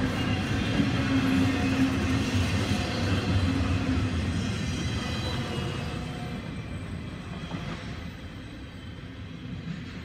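Double-stack intermodal freight cars rolling past: steady steel-wheel-on-rail running noise that fades away in the second half as the tail end of the train goes by.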